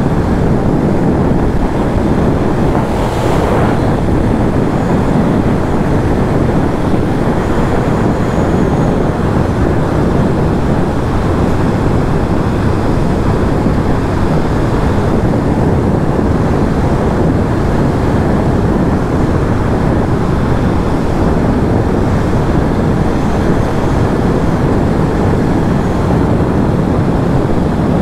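KTM 990 Super Duke's V-twin engine running at a steady cruising speed, heard from the rider's helmet under heavy wind rush over the microphone.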